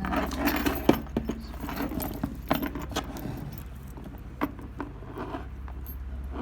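Metal hardware on a Louis Vuitton bag strap clinking and jangling as it is handled, a quick run of sharp clicks in the first three seconds and a few more later. A steady low hum runs underneath.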